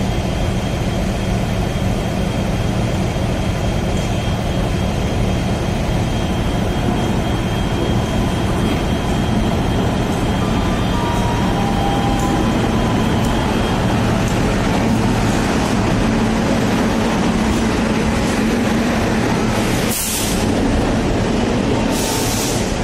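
WAP-5 electric locomotive hauling a Duronto Express along a station platform, a steady loud rumble of the train on the rails as the locomotive comes by and the coaches roll past. Two short hisses come near the end.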